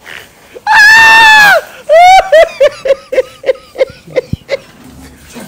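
A person's high-pitched scream held for about a second, followed by a run of short laughs that fall in pitch and fade away.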